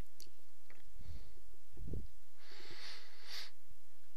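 A person breathing out audibly close to the microphone, about two and a half seconds in and lasting about a second, over a low steady electrical hum. A few faint computer-mouse clicks come early on.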